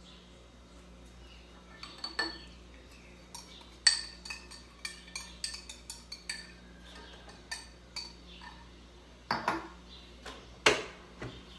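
Clinks and knocks of a glass cup and utensils against a stand mixer's bowl and head while ingredients are added, a dozen or so separate strikes with the sharpest about 4 s in and near the end.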